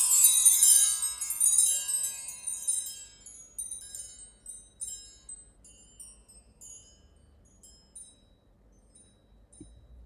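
Chime tree from GarageBand's Orchestral Kit: a shimmering cluster of many high, bell-like metallic tinkles that rings out and fades over the first three seconds or so. A few scattered tinkles follow and grow fainter until it is almost silent.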